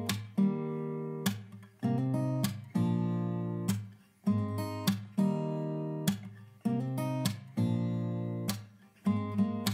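Background music: an acoustic guitar strumming chords, each strum ringing out and fading before the next.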